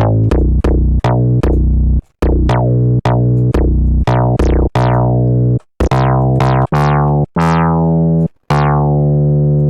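Synthesizer built from phase-modulated formant oscillators, playing a run of short, heavy low notes with brief gaps between them. Each note starts with a bright, spitty attack that darkens quickly, over a fat, pounding low end.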